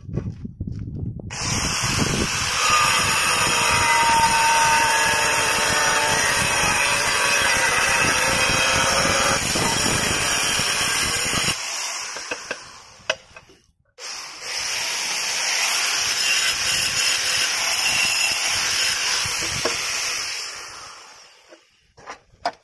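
Handheld angle grinder cutting a ceramic floor tile, in two long runs of about ten and seven seconds. Each run dies away at the end, with a short pause in between.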